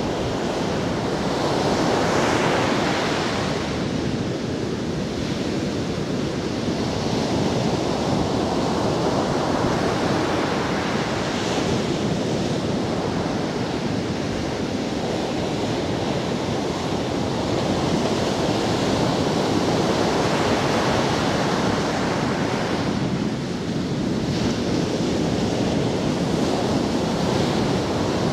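Ocean surf breaking and washing up a sandy beach: a continuous rush of water that swells each time a wave breaks.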